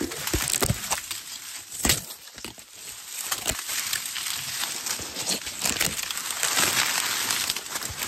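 Dry corn leaves and stalks rustling and crackling as they brush and scrape against the camera, with many sharp crunches and snaps while pushing through a row of mature, dried-down corn.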